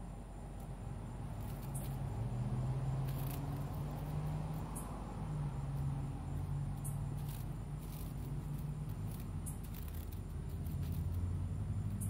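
Night insects trilling steadily in a thin high band over a louder, wavering low hum. A few short, scratchy crackles come at irregular moments.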